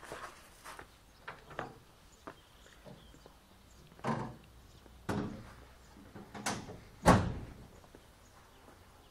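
Footsteps on gravel: a few light steps, then four heavier ones in the second half, the last the loudest.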